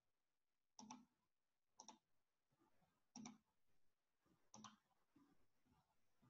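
Four faint computer mouse clicks a second or so apart, each heard as a quick double tick.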